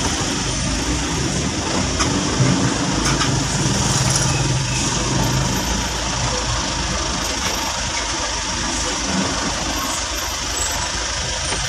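Vehicle engines idling and creeping in congested street traffic, a steady engine and road noise. A deeper engine hum swells for a few seconds starting about two seconds in.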